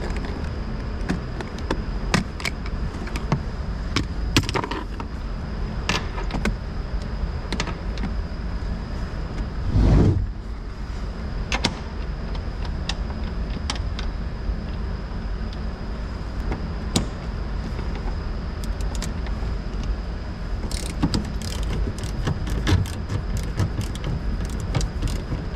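Socket ratchet clicking and tools knocking against metal while a truck seat is being unbolted from its floor track, with a louder thump about ten seconds in and a quick run of clicks near the end, over a steady low hum.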